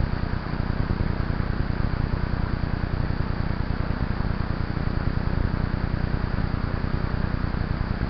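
Steady rushing noise with a low, rapidly fluttering rumble: wind buffeting and trail vibration on a mountain bike's camera microphone while riding.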